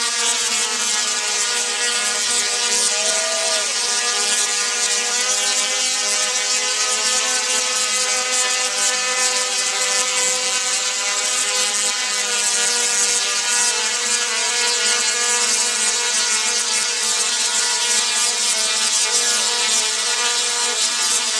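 Tesla coil arcs buzzing and crackling continuously as they strike a quadcopter in a wire-mesh Faraday cage. Underneath runs the quadcopter's rotor whine, a pitched hum that drifts slightly up and down.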